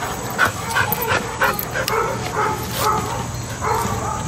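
Dog barking and yipping in a quick series of short, high yaps, about three a second.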